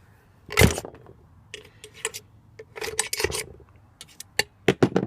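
Tools and parts of a food waste disposer being worked apart by hand: one sharp knock about half a second in, then bursts of scraping and clicking of metal and plastic as latch pieces are pried loose.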